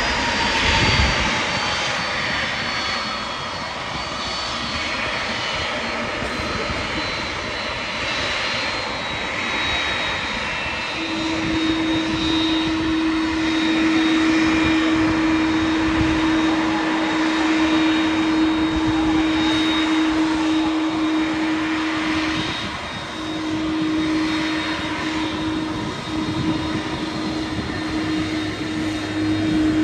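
Airbus A300-600ST Beluga's General Electric CF6 turbofans running at taxi power: a steady jet whine over a rush of air. A steady low hum sets in about eleven seconds in and holds, with a short break past the middle.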